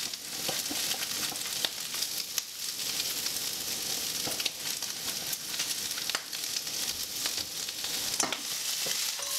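Tempeh, asparagus and freshly grated garlic frying in peanut oil in a wok: a steady sizzle, with a few light clicks.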